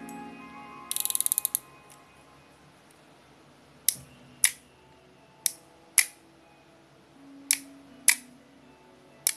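Hammerhead Alberto 2500 spinning reel being worked by hand: a quick run of small clicks about a second in, then the bail arm snapped open and shut four times, each a pair of sharp clicks about half a second apart.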